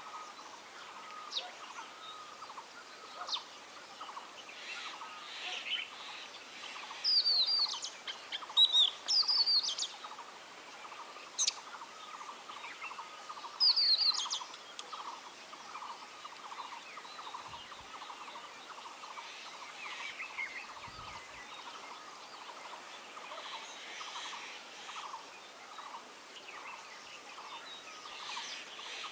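Oriental magpie-robin singing: sharp, high whistled notes that slur downward, coming in short bursts with pauses of several seconds between them. Underneath runs a faint, continuous, rapid pulsing sound.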